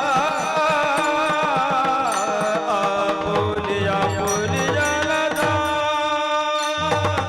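Marathi Warkari kirtan music: a male voice sings a wavering, ornamented melody over a steady drone, then long held notes, with mridang drum strokes coming in about three seconds in.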